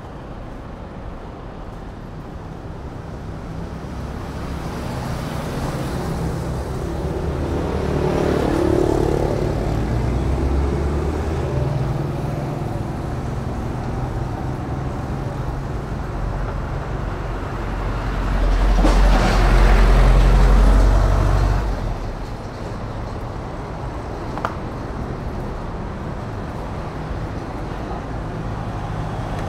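Road traffic passing on a city street: a steady wash of car engines and tyres, swelling as vehicles go by. About two-thirds of the way through, a louder vehicle with a deep engine rumble passes close.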